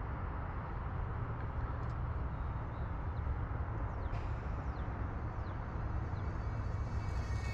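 Wind buffeting the microphone in the open: a steady, fluttering low rumble.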